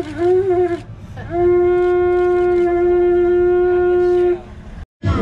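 A horn sounding one steady note: a short blast, then a long held blast of about three seconds.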